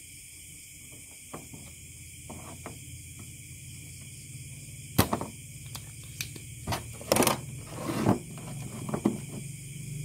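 Soldering tools handled on a workbench while desoldering a mouse's button switch: a sharp snap about five seconds in, then a run of lighter clicks and knocks and a brief scraping rustle, over a steady faint hum.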